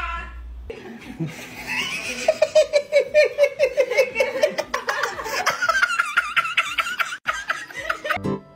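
A person giggling in long runs of quick, high-pitched laughs. It opens with the tail of a short cat meow.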